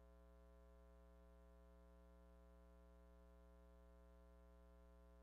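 Near silence with a faint, steady electrical hum made of one low tone and its even overtones, unchanging throughout.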